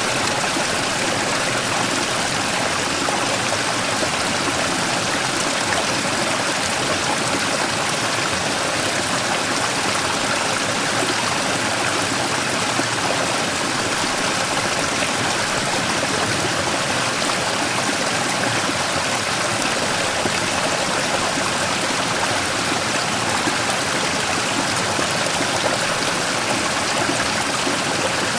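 Mountain stream flowing over and around a large rock: a steady, continuous rush and trickle of water with no let-up.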